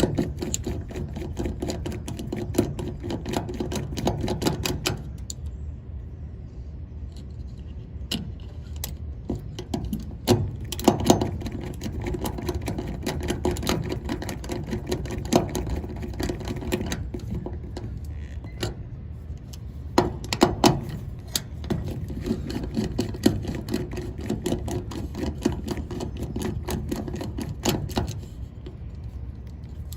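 Irregular small clicks and taps of hand tools and wiring being worked while the fan motor's leads are connected to the contactor, over a steady low hum.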